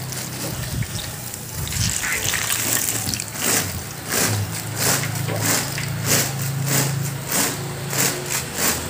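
Small banana pieces deep-frying in a wok of hot oil, sizzling and bubbling. A wire skimmer lifts and shakes the fried pieces, and the oil splashes back into the pan about twice a second in the second half.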